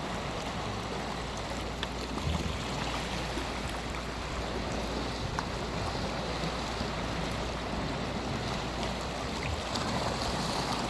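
Steady sea surf and wind, with waves washing on the shore and no music.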